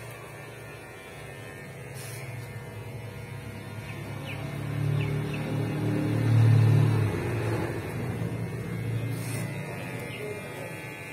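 Low engine rumble of a passing vehicle, swelling to its loudest about six and a half seconds in and then fading, over a steady low hum.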